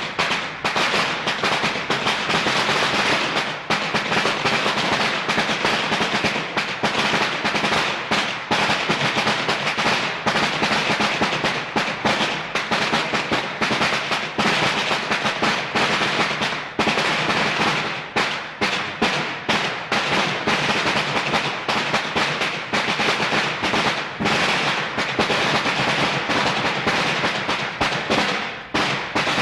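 Fireworks crackling and popping densely and without a break, a rapid rattle of many small reports.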